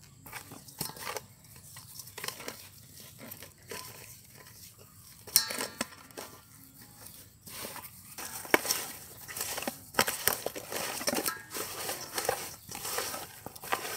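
Hands scrubbing whole fish with coarse salt in a stainless steel bowl: irregular gritty rubbing and scraping, with sharp knocks against the metal. The scrubbing gets busier and louder about halfway through.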